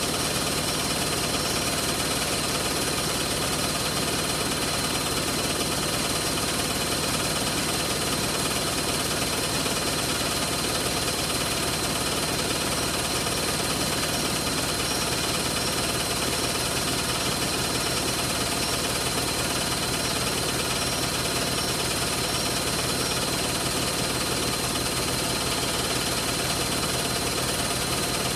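Hoover Logic washing machine spinning its drum at high speed, a steady loud whir with a thin high whine over it.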